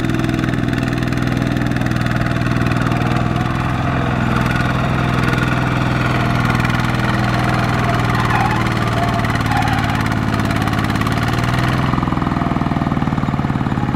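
Single-cylinder diesel engine of a two-wheel walking tractor running steadily under load, hauling a loaded trailer through deep mud.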